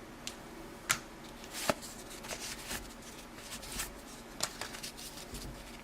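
1984 Topps hockey cards being flipped through one at a time by hand: quiet, scattered clicks and slides of card stock against card stock, about two a second.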